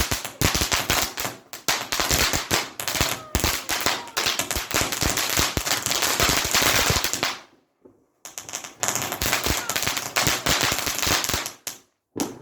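Consumer firework going off in a rapid, machine-gun-like string of cracks and bangs for about seven seconds, then after a brief break a second rapid volley, with one last crack near the end.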